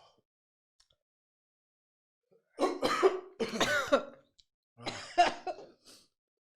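A person coughing in two harsh fits, the first about two and a half seconds in and the second near five seconds, from the burn of an extremely hot spicy food in the throat.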